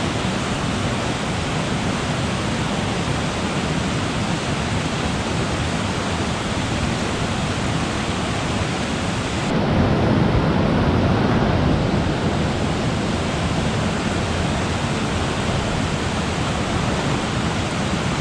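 Small creek swollen by overnight rain, rushing loud and steady over rocks. The rush swells a little louder for a couple of seconds about ten seconds in.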